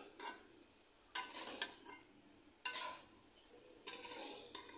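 A metal spatula scrapes and stirs potato and soya chunks around a metal kadai, in several separate strokes about a second apart. The chunks are frying in oil with spice paste, with a faint sizzle between strokes.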